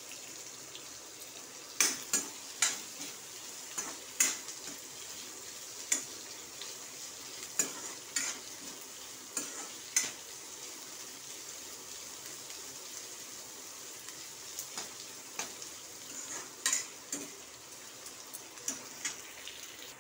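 Sliced onions sizzling in hot mustard oil in a metal kadhai over a high flame, browning toward golden, with a steady hiss. A metal ladle stirring them gives irregular sharp scrapes and knocks against the pan.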